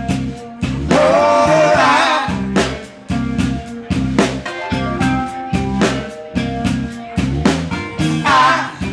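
Live band playing a groove: a drum kit beat with bass and guitar, and a short sung line about a second in.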